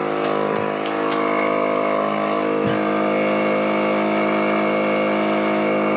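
Steady, unchanging hum of a running motor, with a couple of faint knocks about half a second and nearly three seconds in.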